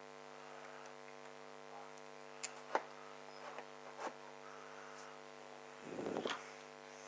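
Steady electrical mains hum, with a few light clicks about two and a half to four seconds in and a brief rustle about six seconds in.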